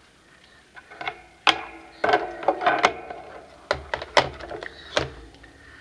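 Cardstock tags and journal cards being handled and laid down on a tabletop: a run of sharp taps and clicks, busiest from about two to three seconds in.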